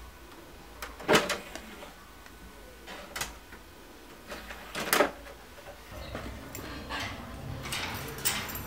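Sharp clicks and clunks of a stereo system's disc tray being worked by hand, three separate strokes, then a low hum comes in, followed near the end by the rattling clicks of a metal slide bolt on an iron window grille.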